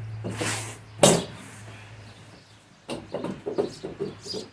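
Handling clatter from working on a wheelbarrow wheel and axle: a short scrape, then one sharp knock about a second in, and a quick run of small clicks and taps near the end.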